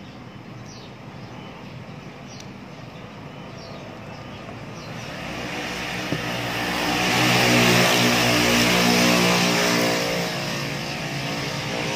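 A passing motor vehicle: engine and road noise swell up from about halfway through, are loudest for a few seconds, then ease off slightly. A single sharp click comes about six seconds in.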